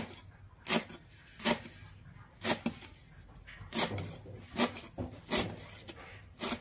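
Knife slicing a lemongrass stalk into thin rounds on a cutting board: about ten sharp chops, unevenly spaced roughly half a second to a second apart.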